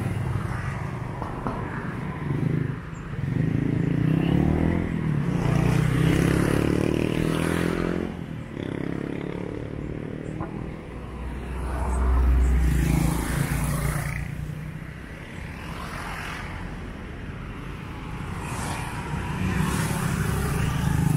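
Street traffic: motor scooters and cars passing one after another, their engines swelling and fading, with louder passes about a third of the way in, just past the middle and near the end.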